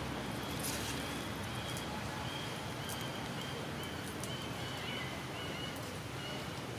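Outdoor woodland ambience: a steady background hiss with a short, high chirping note repeated about twice a second, and a few faint clicks.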